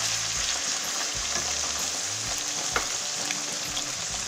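Raw chicken pieces sizzling in hot oil and ginger-garlic paste in a wok, at the start of frying, as they are turned with a slotted spoon. There is one sharp tap a little under three seconds in.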